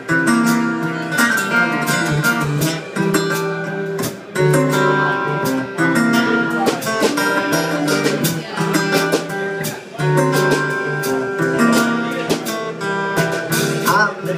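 Acoustic guitar playing strummed chords.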